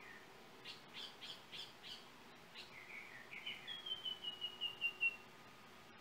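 Yellow oriole singing: a quick run of five sharp notes, then a string of short whistled notes that step gently down in pitch and grow louder toward the end.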